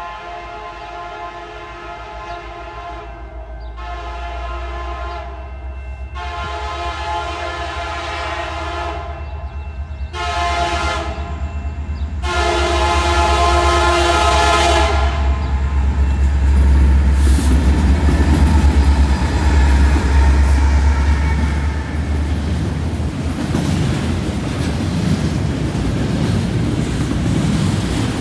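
Air horn of a CN freight diesel locomotive sounding five blasts for a grade crossing, the last held about three seconds, over a deep engine rumble that builds as the two locomotives come past. From about two-thirds in, the double-stack intermodal cars roll by with a steady wheel rattle and clickety-clack.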